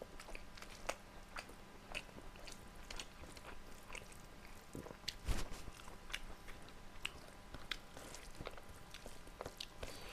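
Close-miked chewing and biting: a steady run of short wet mouth clicks and smacks as food is chewed, with one louder low thump about five seconds in.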